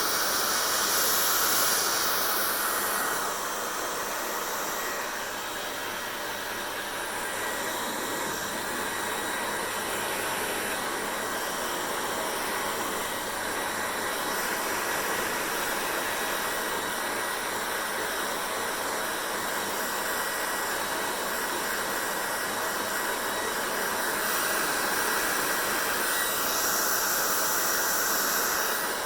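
Hand-held hair dryer blowing steadily with a faint motor whine. The rush of air gets brighter at the start and again near the end as the dryer's airflow shifts.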